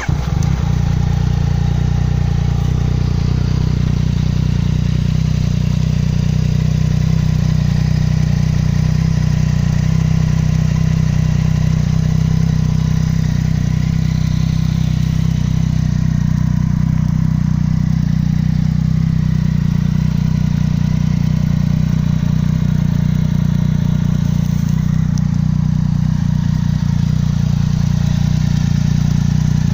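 Yamaha Tracer 900 GT's 847 cc three-cylinder engine, breathing through an Arrow 3-into-1 full exhaust with an X-Kone silencer, catches right at the start and then idles steadily.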